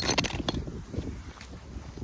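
Wind buffeting the microphone, with a quick cluster of sharp crackles at the start and one more click about half a second in.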